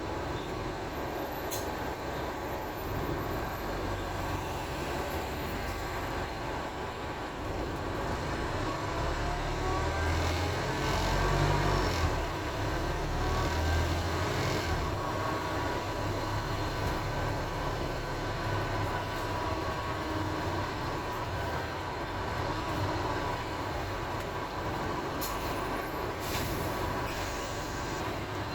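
Wright StreetDeck double-decker bus with a Daimler OM934 four-cylinder diesel, heard from on board while moving: steady engine and road rumble. From about nine seconds in, a whining, groaning tone rises in pitch as the bus picks up speed, loudest around twelve seconds, then settles.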